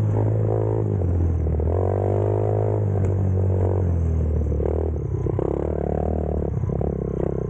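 Off-road motorcycle engine running while riding, its pitch shifting now and then, with rattling and scraping over it.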